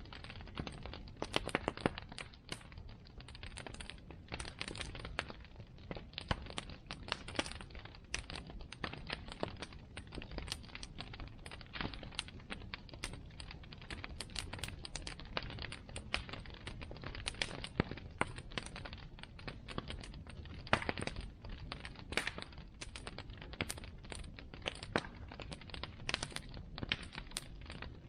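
Bonfire burning, with dense, irregular crackling and popping over a steady low rumble.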